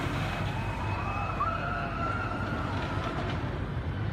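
Bolliger & Mabilard floorless roller coaster train running along its steel track: a steady low roar, with faint drawn-out high wailing tones over it.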